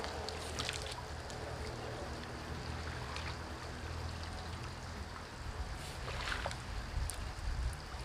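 River water running steadily, with a few faint clicks and knocks over it.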